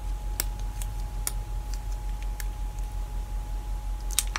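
A few scattered sharp clicks and small handling sounds from a lip gloss tube and wand being worked at the lips, over a steady low electrical hum and a faint thin steady tone.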